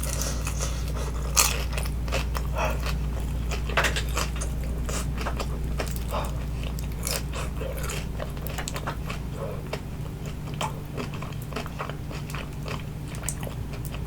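Close-miked biting and chewing of crispy oven-baked vegetable spring rolls: a run of sharp crunches from the pastry shell with softer chewing between them. The loudest crunches come about one and a half and four seconds in.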